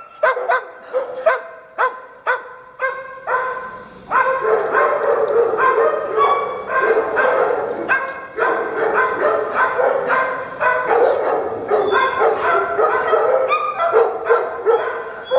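A group of dogs barking. At first the barks come one at a time, about three a second. From about four seconds in, many dogs bark over each other in a continuous din.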